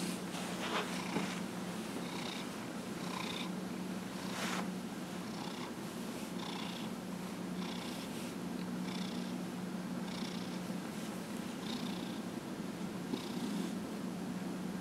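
Domestic orange tabby cat purring steadily as it is massaged.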